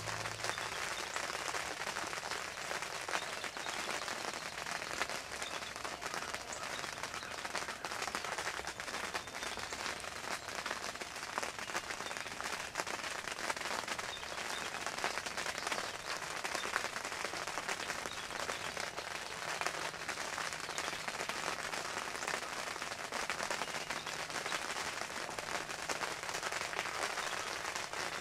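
Steady rain falling: a dense patter of many small drops hitting a surface.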